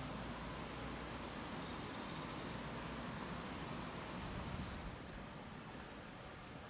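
Outdoor ambience: a steady, even hiss with a low rumble underneath, and a few faint, high bird chirps, a short run of them about two seconds in and another quick series about four seconds in.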